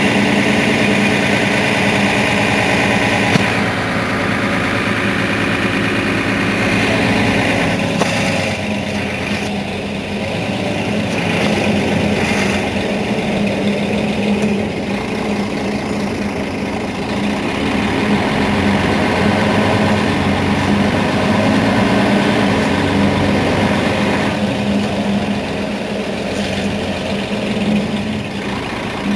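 Mercedes-Benz Citaro facelift city bus's rear-mounted engine idling steadily with the bus standing still. A hiss over it drops away about three seconds in.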